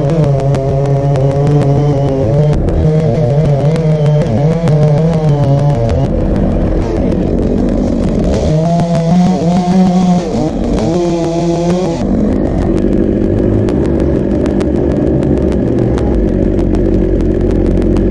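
Chainsaw cutting through a thick sycamore trunk at high revs, its pitch wavering and dropping as the chain bogs in the wood and rising again. About twelve seconds in it gives way to a steadier, lower engine sound.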